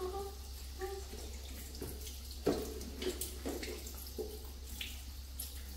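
Water running from a tap into a sink, with splashing and a few knocks as things are washed under it.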